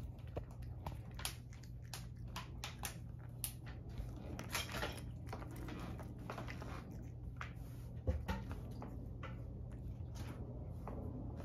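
A cat crunching and chewing freeze-dried minnows: a run of irregular crisp crunches, thicker in the first half, with a low thump about eight seconds in, over a steady low hum.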